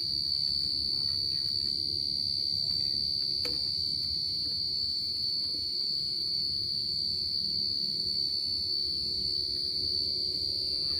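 Crickets trilling in one steady high-pitched note, over low rustling from handling the plant and bottle, with a single sharp click about three and a half seconds in.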